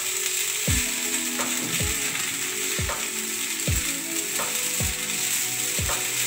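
Flattened rice and vegetables frying in oil in a nonstick kadai, stirred and turned with a silicone spatula: a steady sizzle with soft scraping strokes.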